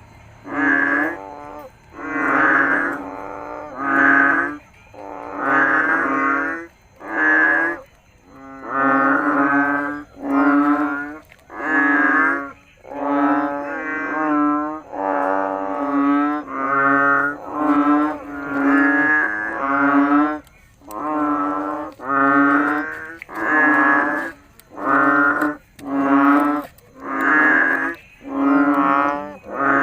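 Frog calling over and over: long, droning, buzzy croaks of about a second each, repeated roughly once a second, each holding one low pitch.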